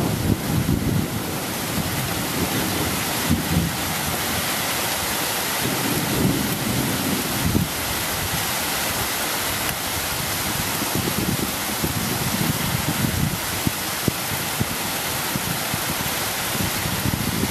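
Heavy thunderstorm rain driven by downburst winds: a steady hiss of the downpour, with several gusts rumbling and buffeting against the microphone.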